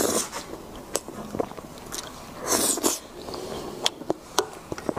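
Close-miked eating of soft mousse cake: wet mouth sounds in two short bursts, with several sharp clicks of utensils against the plate and dish as more cake is scooped.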